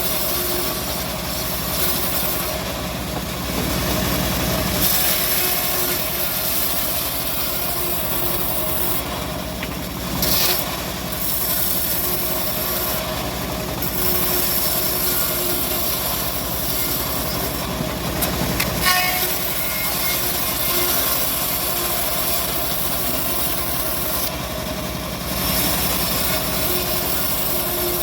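Homemade bandsaw mill running steadily while sawing an old teak log, a continuous machine drone with blade hiss that dips briefly now and then.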